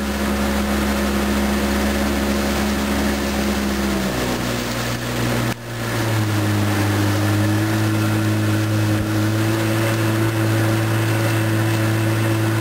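Motorboat engine running steadily, then speeding up about four seconds in; after a brief dip it holds a higher, steady pitch.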